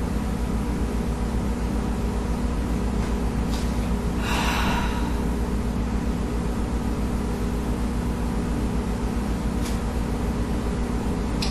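A steady electrical hum with several fixed pitches, and one breathy sigh from the woman about four seconds in.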